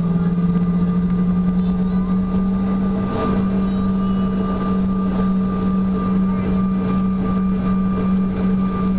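Cabin sound of a Bombardier CRJ200 regional jet taxiing, its rear-mounted General Electric CF34 turbofans running steadily: a constant low drone with a steady whine above it.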